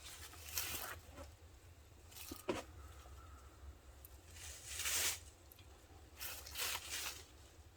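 Scattered rustling and crunching from handling and moving around while setting up the shelter: about six short, uneven scrapes, the loudest about five seconds in.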